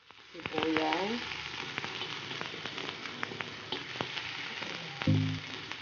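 Chopped red onion sizzling in hot oil in a pan, starting about a third of a second in, with the spatula clicking and scraping against the pan as it is stirred.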